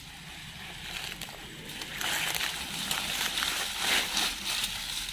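Dry branches and dead leaves rustling and crackling as a man pulls at and rummages through a brush pile, getting louder about two seconds in.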